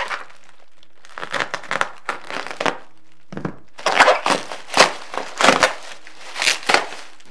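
Bubble wrap being handled and pulled open by hand, crinkling and crackling in irregular bursts, louder and denser in the second half after a short pause.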